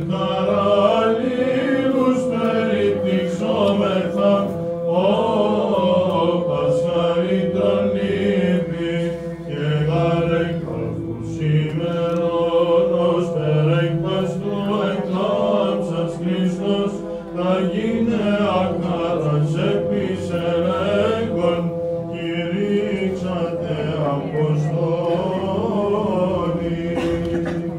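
Byzantine chant: a melismatic vocal line winding up and down over a steady held drone note (the ison).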